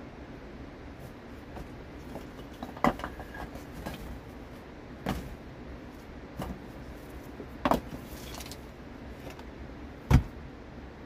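Stones knocking against each other as rocks are picked up and set down by hand: about five sharp clacks a second or two apart, the loudest near the end, over a steady background hiss.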